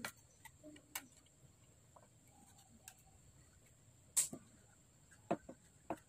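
A few scattered sharp clicks and light knocks of small metal and plastic laptop parts being handled as a hard-drive caddy is taken up. The loudest click comes a little after four seconds in, and two more follow near the end.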